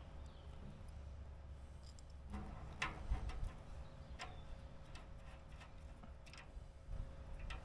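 A handful of light, separate clicks and ticks of a hand tool against the copper tubing and fittings of an evaporator coil, over a steady low rumble.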